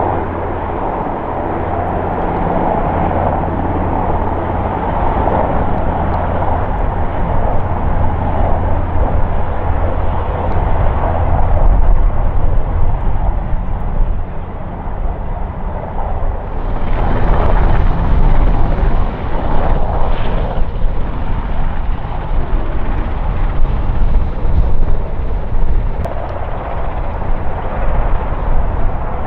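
Helicopter rotor and turbine noise: an AS532 Cougar in flight, a steady low hum. About 17 seconds in it changes abruptly to an NH90 flying low, louder and with more hiss.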